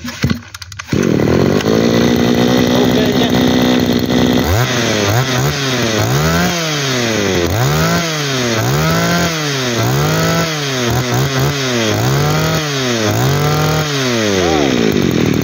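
Mitsubishi TB23 23cc two-stroke brush cutter engine catching about a second in and idling steadily. After about four seconds, the throttle is blipped over and over, about once a second, with the engine revving up and falling back nine times. Near the end it settles back to idle.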